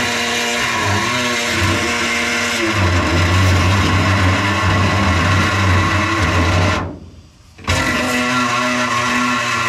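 Background guitar music. It drops out briefly about seven seconds in, then resumes.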